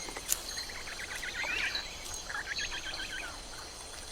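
Wetland ambience: birds chirping in two quick runs of short notes over a steady high insect drone.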